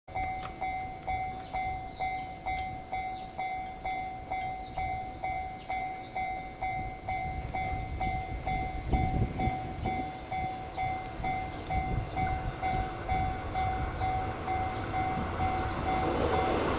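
Railway level-crossing warning bell ringing in a steady repeating ding, about two to three strikes a second. An approaching train's rumble builds from about halfway through and grows loud near the end.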